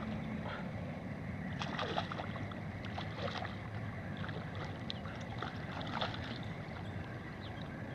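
Hooked bass thrashing at the surface of shallow water: several short splashes, the strongest about two seconds in and others around three and six seconds in, over a steady low background noise.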